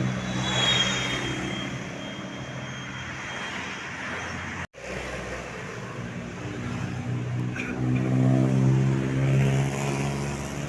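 Tour bus engine running as the bus goes by, revving up and getting louder near the end. The sound cuts out for a moment near the middle.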